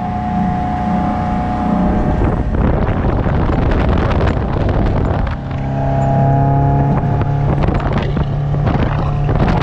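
MerCruiser 140 3.0-litre four-cylinder sterndrive engine running the boat under way on its newly fitted carburetor, with wind buffeting the microphone. About five seconds in the level dips briefly, then the engine note holds steady and stronger.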